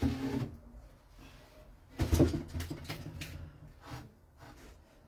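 Handling noises from a wooden bread peel and a round flatbread at a griddle: a knock at the start, a louder thud about two seconds in, then lighter taps and rubbing as the loaf is slid off the peel and pressed down by hand.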